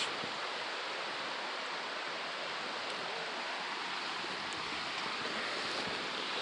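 Steady, even rush of a waterfall on a creek, falling water that can be heard but not seen.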